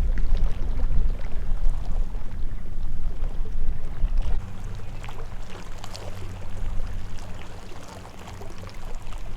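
Wind buffeting the microphone: a gusty low rumble, heaviest for the first four seconds or so and easing after, with a few faint ticks over it.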